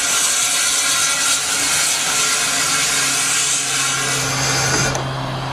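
Steam hissing steadily from an Andrew Barclay saddle-tank steam locomotive, its high hiss falling away about five seconds in. A low steady hum joins about halfway through.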